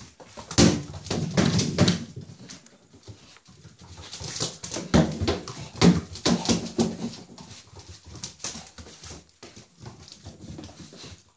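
American Staffordshire Terrier puppy playing with plastic balls on a tile floor: a busy run of knocks and clicks from paws and ball on the tiles, mixed with short dog vocal sounds.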